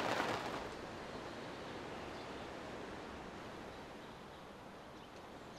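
Rain on the boat's canvas canopy dies away in the first second, leaving a faint, steady hiss of outdoor ambience.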